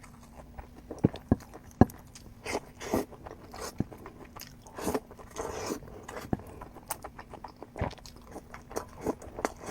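Close-up eating sounds: crisp bites and chewing in irregular bursts, with a few sharp clicks between one and two seconds in.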